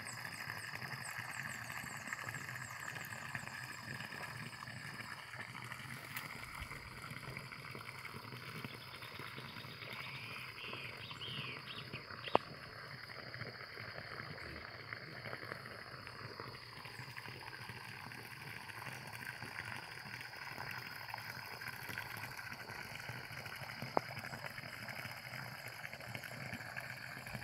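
Faint rural outdoor ambience: a steady high insect drone and a few brief animal calls about ten seconds in, over the low bubbling of gravity-fed water welling up from a pipe into a small pond. Two sharp clicks stand out, one in the middle and one near the end.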